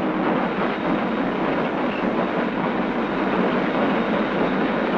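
Steam-hauled freight train running under way, a steady rumble and rush of noise.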